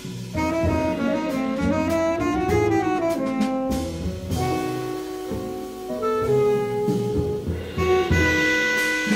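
Live jazz quintet playing: a saxophone carries a stepping, gliding melody over drums and double bass.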